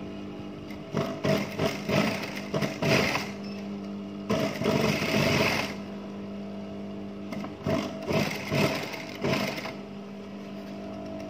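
Sewing machine stitching a seam slowly in three short runs, with a steady hum in between.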